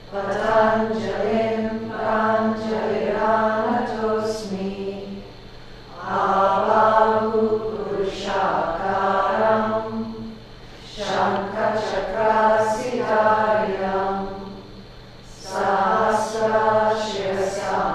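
A yoga class chanting together in a steady, sustained tone, in phrases of four or five seconds with short pauses for breath between them.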